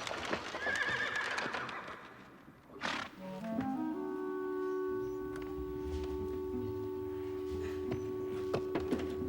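A horse whinnies in the first two seconds, followed by a short sharp noise about three seconds in. Then background music enters with notes rising step by step into a long held chord.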